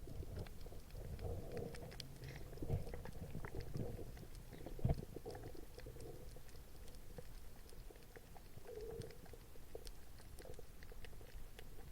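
Underwater ambience: scattered fine crackling clicks with a few dull low thumps, the loudest about five seconds in.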